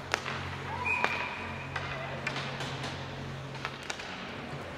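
Ice hockey rink sounds: scattered sharp clacks and knocks of sticks, puck and boards over a low steady hum, with a thin high tone held for about a second near the start.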